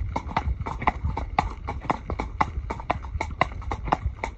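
A horse's hooves clip-clopping on a paved lane, a steady run of sharp hoofbeats several times a second.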